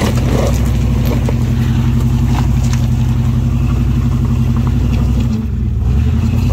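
A four-wheel-drive SUV's engine running steadily under load as the vehicle crawls slowly over loose rocks, with faint clicks of stones under the tyres.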